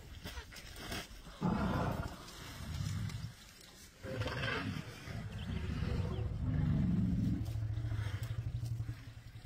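Elephant giving deep, low rumbling roars: one call of about two seconds, then a longer one of about five seconds. The calls come from a cow elephant standing over her newborn calf.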